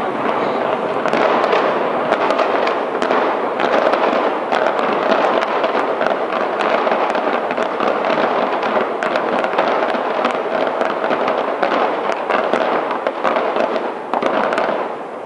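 Fireworks fired from the sides of a skyscraper: a loud, continuous crackle of many rapid pops and bangs with no break, easing slightly near the end.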